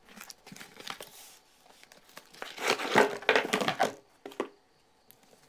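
Packaging in a cardboard delivery box crinkling and rustling as the box is opened and unpacked. The sound is loudest around the middle and stops about a second before the end.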